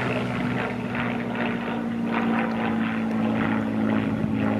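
A Spitfire flying high overhead: its V12 piston engine running as a steady hum made of several even tones.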